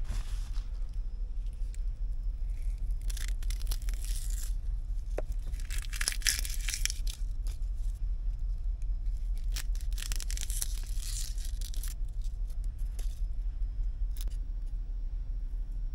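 Several bursts of rustling and tearing, each a second or so long, over a steady low hum.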